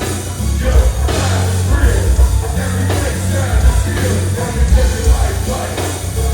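Loud music with heavy bass and singing.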